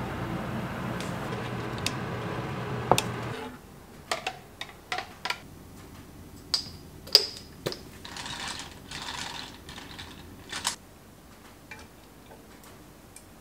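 Water boiling hard in a saucepan, which stops abruptly about three and a half seconds in. Then comes a run of light clicks and knocks from a glass jar and a metal mesh strainer being handled against the pot, with a short hiss in the middle.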